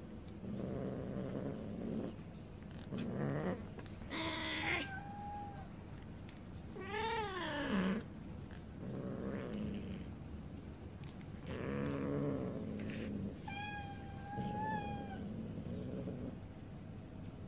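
Cats yowling: a run of low, drawn-out calls, one bending down and back up in pitch about seven seconds in, with a few thinner, higher meows among them.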